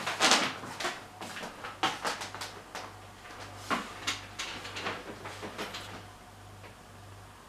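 Irregular soft knocks, clicks and rustles from someone moving and handling a handheld camera close to the wall, loudest just under a second in and dying away after about six seconds, over a faint steady low hum.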